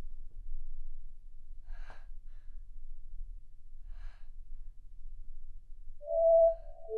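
A woman's two short breathy sighs over a low steady room hum, then a held musical note from the film's score starts about six seconds in and steps down to a lower note at the end.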